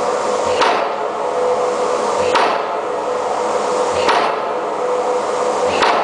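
Impact hammer driving an open-end steel pipe pile: four heavy blows about one and three-quarter seconds apart, each followed by ringing that dies away, over a steady hum.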